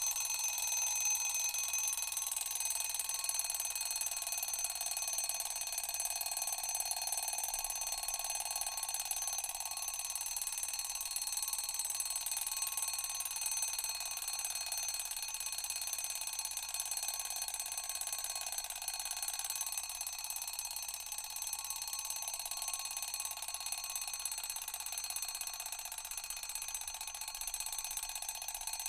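Old-fashioned alarm clock bell ringing without a break: a high, metallic ring held steady throughout.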